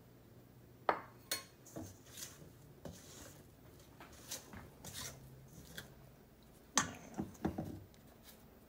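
A spatula scraping and knocking against a stainless steel mixing bowl while stirring a stiff flour-and-water playdough mix. The clicks and scrapes come unevenly, with the sharpest knocks about a second in and again around seven seconds in.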